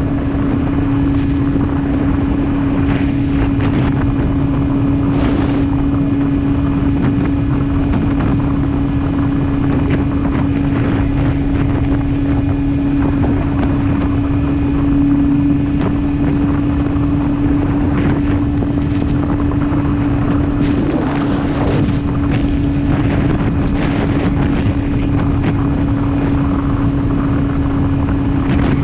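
Motorcycle engine running at a steady cruising speed, a constant droning hum over road rumble, with wind buffeting the microphone.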